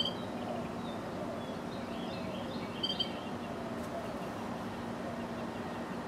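Carolina wrens at the nest giving short, high chirps: one at the start and a quick cluster about two to three seconds in, over a steady low background hum.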